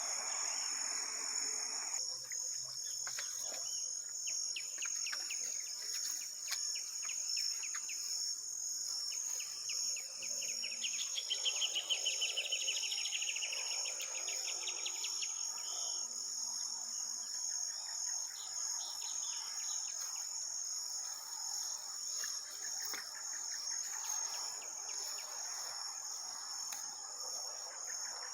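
Insects chirping steadily in a high-pitched chorus, with a rapid pulsed trill rising out of it from about ten seconds in for some five seconds.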